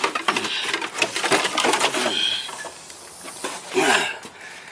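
Ratchet wrench clicking and metal tools clinking against the engine while two stubborn bolts are worked loose, with a short high squeak about two seconds in.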